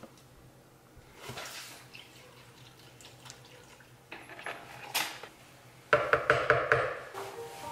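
Kitchen handling sounds as smoothie ingredients go into a plastic blender jar: scattered light knocks and rustles, then near the end a quick run of sharp rattling taps, about six a second, from a spice jar being shaken over the jar.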